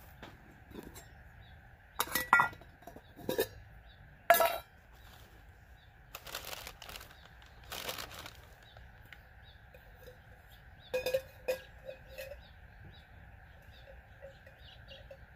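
Stainless steel cook pots and lid clinking and knocking together as they are unstacked and set down: several sharp metallic clinks with a short ring, a cluster about two to four and a half seconds in and two more around eleven seconds.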